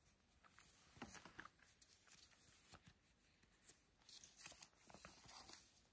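Near silence, with a few faint rustles and light clicks from hands handling a knit wool beanie and its paper hang tag.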